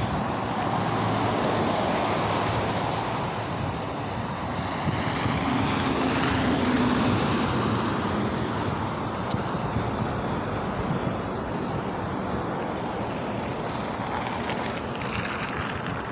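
Road traffic: cars and a city bus driving past on a slushy winter road, a steady rush of tyre and engine noise, with a low engine hum from a passing vehicle about five seconds in.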